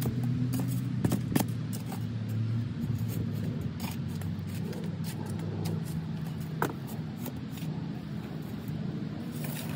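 Metal shovel digging into loose soil and tipping it into a wheelbarrow, with a few sharp scrapes and clinks, over a steady low engine hum from a running motor vehicle.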